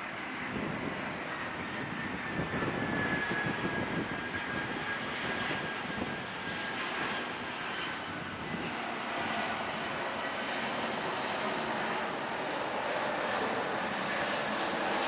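Airbus A319 jet airliner on final approach with gear down, its twin turbofan engines making a steady rushing noise that grows louder as it comes close. A faint high whine slides slightly down in pitch in the first half.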